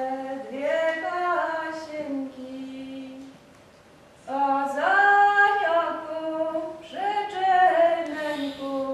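Women's voices singing a traditional Masurian song in long held notes. The song comes in three phrases, with a short pause about three and a half seconds in.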